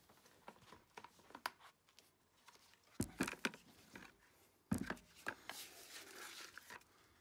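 Handling noises from a trowel and a plastic bucket of concrete mix: scattered clicks, two sharp knocks about three seconds and nearly five seconds in, then a crinkly rustle for about a second.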